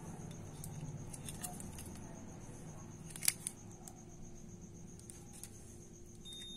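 Light clicks and taps from handling multimeter probes and a phone circuit board, the loudest about halfway, over a faint steady high whine. Near the end a multimeter's continuity beeper starts a steady high beep, the sign of a closed circuit between the probes.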